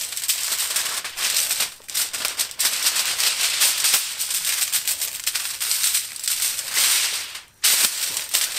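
Aluminium foil crinkling and crackling as a whole fish is handled, turned over and rubbed with seasoning on top of it, with short pauses about two seconds in and near the end.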